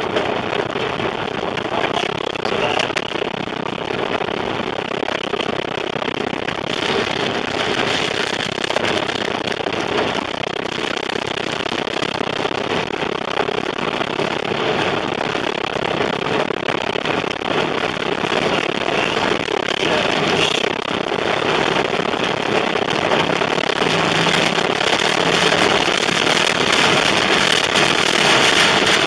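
Tornado-driven rain and wind lashing a moving car, heard from inside: a loud, dense crackle of drops and debris pelting the body and glass over the wind's rush, growing louder toward the end.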